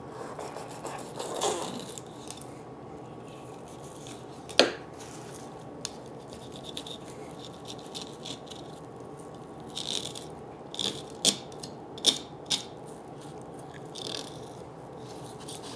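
Fillet knife slicing and scraping along a walleye's backbone and ribs on a plastic cutting board: a quiet, ongoing scraping with a few sharp clicks, one about a third of the way in and several more in the second half.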